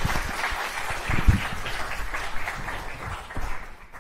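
Audience applauding, the clapping thinning and dying away toward the end, with a low thump about a second in.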